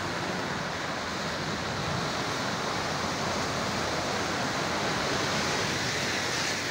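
Floodwater rushing across a road in a steady rushing noise, with vehicles splashing through it; the noise grows a little brighter near the end.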